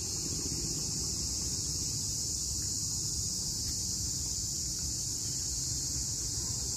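Steady high-pitched drone of insects, with a rough low rumble of wind on the microphone beneath it.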